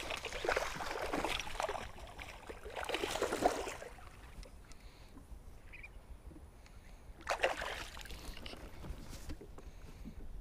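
A hooked bass thrashing and splashing at the water's surface in bursts over the first few seconds, then one more short splash about seven seconds in.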